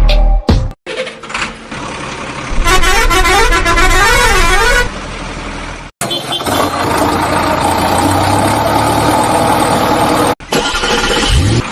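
Vehicle sound effects spliced together with abrupt cuts: a horn whose pitch wavers up and down about twice a second, then a steady truck engine noise.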